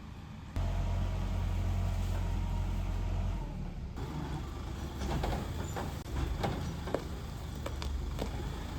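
An engine running with a steady low hum that comes in abruptly about half a second in, joined from about five seconds in by scattered knocks and rattles.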